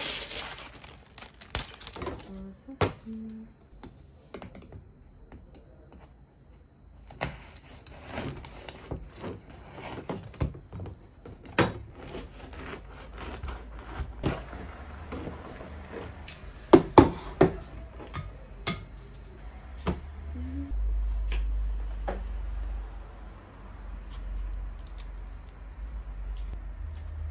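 Kitchen knife sawing through a crusty loaf on a plastic cutting board: the crust crackles and crunches in quick irregular clicks, with sharper knocks of the knife and bread against the board. A steady low hum sets in about twenty seconds in.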